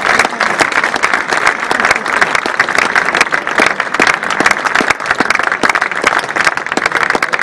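Audience applauding: dense, steady clapping with no break.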